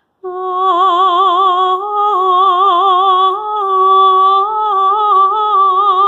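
A woman singing a cappella, a wordless melody of long held notes with strong vibrato that starts a moment in and moves in small steps of pitch.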